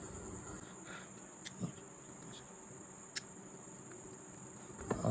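Steady high-pitched chirring of crickets, with two sharp clicks about a second and a half apart.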